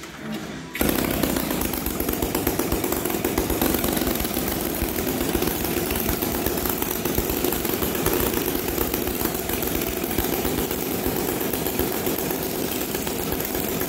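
Opposed-twin petrol spark-ignition model-aircraft engines on a large RC twin-engine plane fire up suddenly about a second in and then run at a steady idle on their first start after a fuel and ignition rebuild, still awaiting a little more carburettor tuning.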